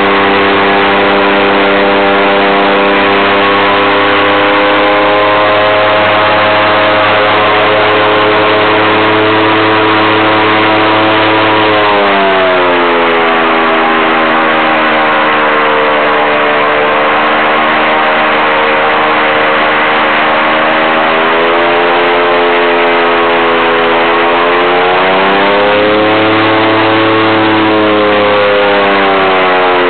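Airboat engine and propeller running loud and steady. The engine note falls about twelve seconds in as the throttle eases, climbs again after about twenty seconds, and falls once more near the end.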